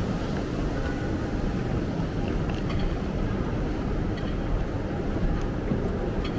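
Steady low rumble of a busy railway station concourse, with a few faint light clicks.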